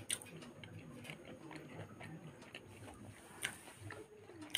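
Faint eating mouth sounds: soft lip smacks and clicks as a meal is finished, with a few sharper clicks among them.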